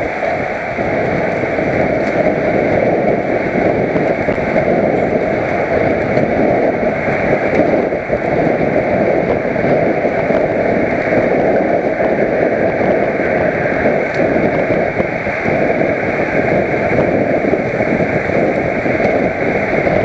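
Steady wind rush and buffeting on a helmet-mounted camera's microphone while riding a road bike at racing speed.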